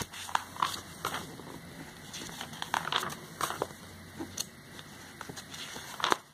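Paper magazine pages rustling and crinkling as they are handled and turned, in short irregular crackles and clicks.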